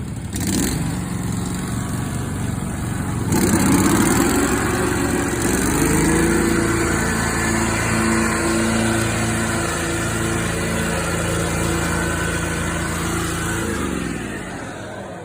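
Lesco commercial mower running with its blades turning, making the odd blade noise that sets it apart from a normal-sounding mower. It gets louder about three seconds in, runs steadily, then winds down near the end as the taped-down safety lever lets go.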